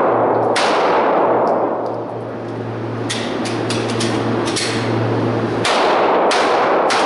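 A string of pistol shots fired during an IDPA stage: single shots a second or more apart, then a quick group of several in the middle, each with a long echoing tail.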